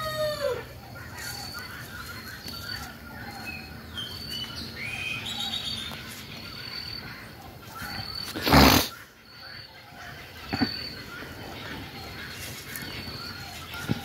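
Outdoor birdsong: a short high chirp repeating about every three quarters of a second, with other scattered bird calls. About eight and a half seconds in, a loud brief whoosh cuts across it.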